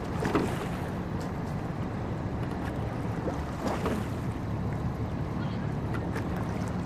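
Sculling boat being rowed: the oar blades catch and splash, with a knock from the oars in their gates, three times at about three-second intervals, over a steady low hum of water and wind.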